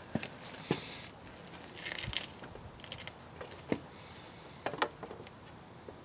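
Scattered light clicks and knocks of metal parts, with a brief scrape about two seconds in, as a motorcycle's rear wheel and sprocket are handled into place in the swingarm under the loose drive chain.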